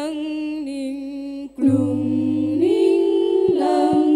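Girls' voices singing an Islamic sholawat into microphones, unaccompanied, holding long notes and stepping from pitch to pitch. There is a short break about one and a half seconds in, and the voices come back louder.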